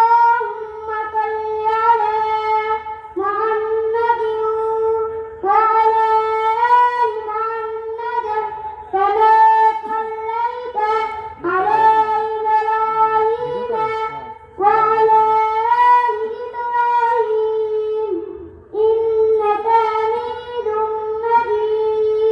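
A boy's high voice chanting melodically into a microphone in long, held phrases of a few seconds each, with short breaks for breath between them.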